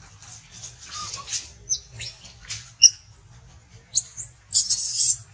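Baby long-tailed macaque crying in short, shrill squeals, building to a longer harsh scream about four and a half seconds in.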